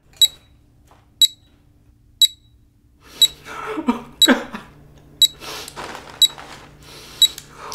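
Time bomb's electronic timer beeping: a short high beep once a second, eight in all. From about three seconds in, a chip bag crinkles and a man gives a brief, falling, nervous groan.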